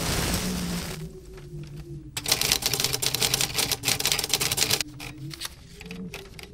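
Soundtrack with a low, wavering drone. There is a hiss in the first second, then a dense run of rapid, typewriter-like clicks for about two and a half seconds.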